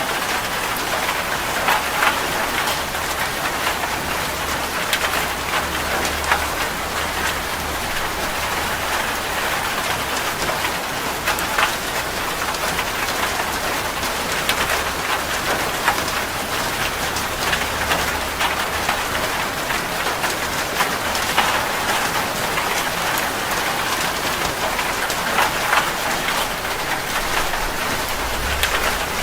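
Heavy rain falling on a metal roof: a steady hiss studded with many sharp drop impacts.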